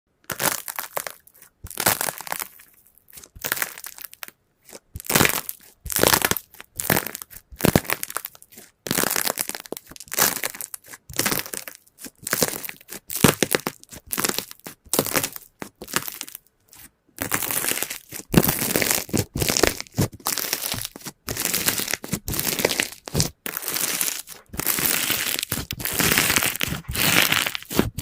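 Slime being squeezed and pressed by hand: a long run of short, crackly, squishy bursts, one after another with brief pauses, coming more closely together in the second half.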